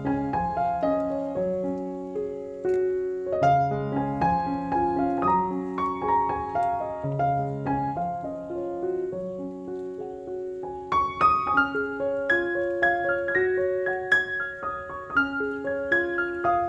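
Background piano music: a gentle melody of struck notes over held chords, brighter and higher-pitched from about two-thirds of the way through.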